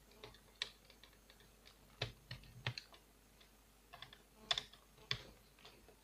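Irregular light clicks and taps of hands handling the plastic underside of an Acer Aspire 5520G laptop: a scattering of sharp clicks at uneven intervals.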